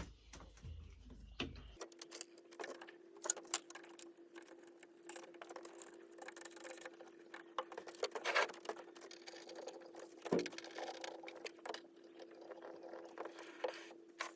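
Faint, quick clicks and light rattles of metal parts being handled while a drill press is put together, with a few louder taps, over a steady hum.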